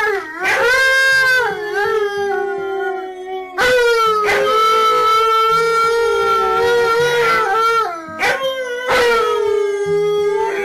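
An Alaskan malamute and a white Siberian husky howling together in long, drawn-out howls. There are three howls of several seconds each. Each one slides up at the start and then holds its pitch, with short breaks between them.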